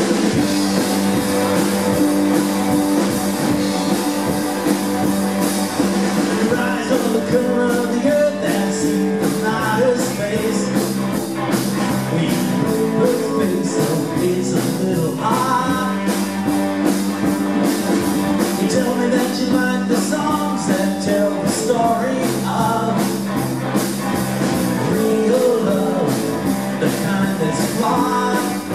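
Live rock band playing: electric guitars, electric bass and drum kit with a steady beat, and a man singing lead.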